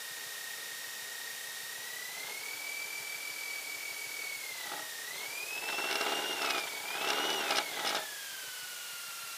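Aviat Husky bush plane's engine and propeller heard as a steady whine over hiss. The pitch rises about two seconds in, then climbs again with a loud rush of noise from about five and a half seconds as power is added to taxi and turn. It drops back to a lower, steady pitch at about eight seconds.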